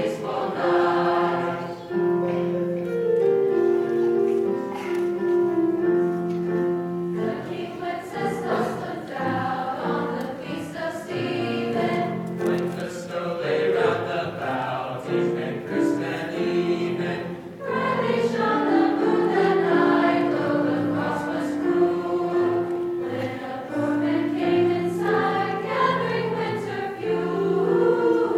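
Mixed-voice high school choir singing in harmony, holding sustained chords in phrases, with a short break a little past the middle before the next phrase begins.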